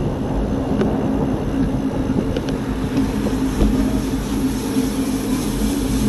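Steady droning hum from a moving vehicle holding an even pitch, with wind rumbling on the microphone and a high hiss that builds in the second half.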